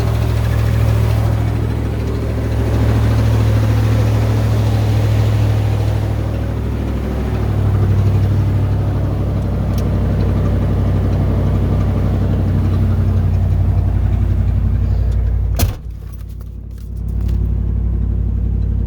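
1990 Ford Bronco engine running steadily with a low hum, the noise that the owner calls weird. The pitch drops slightly partway through. Late on, a sharp click is followed by a brief quieter spell before the low hum returns.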